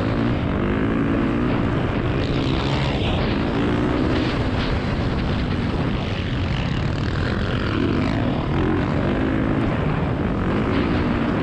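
Motocross bike engine at race pace, heard from an onboard camera: revving up and falling back over and over as the throttle is worked and gears change. Wind noise rushes over the microphone.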